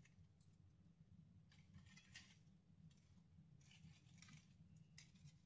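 Near silence with a low hum and a few faint, short clicks and rustles from a hand placing fried bhalle into a plate of water.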